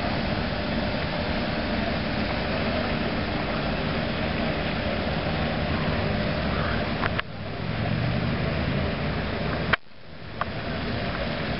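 Radio-controlled speedboat running across the water: a steady motor-and-water noise, broken off abruptly twice, about seven and ten seconds in.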